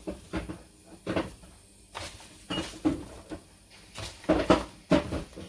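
Kitchen clatter: irregular short knocks and clunks of cookware and containers being handled, about half a dozen, the loudest a pair near the end.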